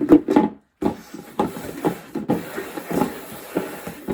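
Rustling and scraping with brief knocks, objects being handled close to the microphone, with a few louder knocks at the start.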